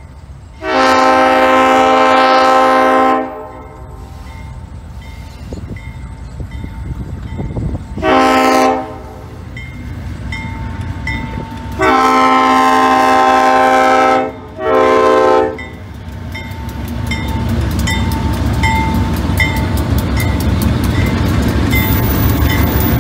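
Diesel freight locomotive's air horn sounding four blasts for a grade crossing: long, short, long, short. Under them the crossing signal bell dings steadily. From about two-thirds of the way in, the rumble of the two GE locomotives pulling hard grows louder as they pass close, with wheels clicking over the rails.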